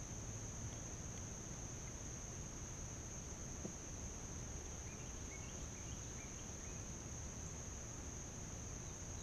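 Insects trilling in one steady high-pitched drone over a faint low rumble, with a few faint short chirps about five to six seconds in.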